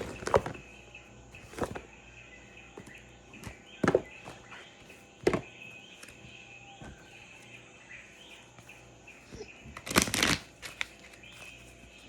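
Jungle ambience recording playing, a steady chirring of birds and insects. It is broken by a few sharp knocks and rustles close by, the loudest cluster about ten seconds in.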